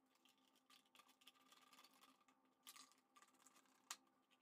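Near silence, with a few faint clicks of a screwdriver turning terminal screws to connect wires on a contactor and circuit breakers.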